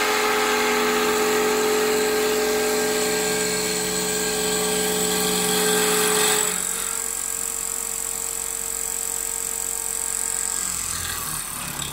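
CNC wood turning lathe running, its cutter shaving a spinning wooden spindle: a steady motor hum and whine under the hiss of cutting wood. About halfway through, the sound drops a little and the lower hum stops.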